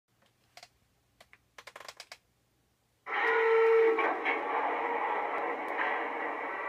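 Zimo sound decoder in an Aristocraft SD-45 G-scale model locomotive playing a diesel engine sound through a speaker in a 3D-printed enclosure. A few faint clicks come first; about three seconds in the engine sound starts suddenly with a brief steady tone, then settles into steady running.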